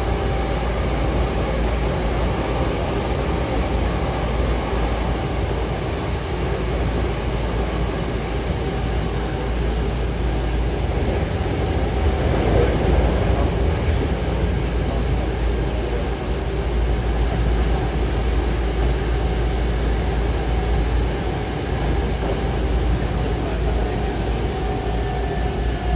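Hankyu Takarazuka Line electric train running, heard from inside the passenger car: a steady rumble of wheels and running gear, with faint steady tones over it.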